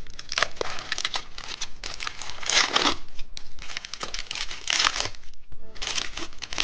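A candy wrapper being torn open and crinkled by hand: a run of crackling rustles, louder twice in the middle.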